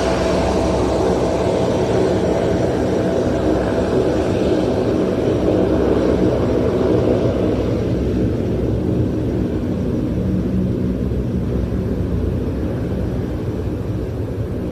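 Aircraft engines in flight, a steady drone with a constant hum; the higher part of the sound fades from about halfway through as the aircraft draws away.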